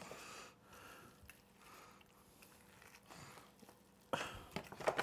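A knife carving through a baked ham along the bone, heard as faint, soft cutting strokes. A louder short sound comes about four seconds in.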